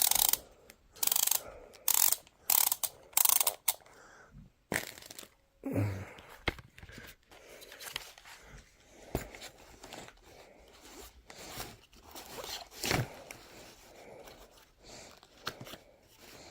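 Handling noise as a VR headset and its accessories are packed into a soft carrying case: a run of loud, short rasping strokes over the first four seconds, then quieter rustling and a few light knocks.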